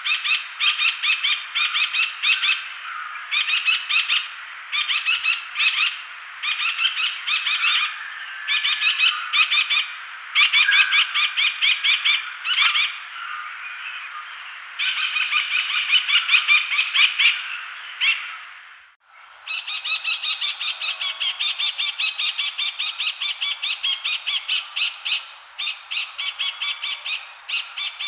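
Layard's parakeets calling: short bursts of rapid, shrill chattering notes, repeated again and again. About two-thirds of the way through the calling breaks off for a moment, then resumes as a steadier run of quick notes.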